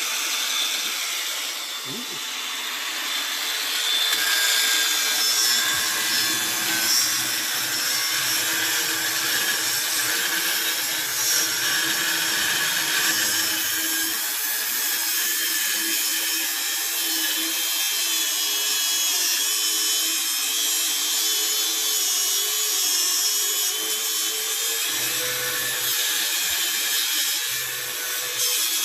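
DeWalt DCG405FN 18 V brushless cordless angle grinder running continuously under load, its cut-off disc cutting, with a steady motor whine that wavers a little as the disc is pressed.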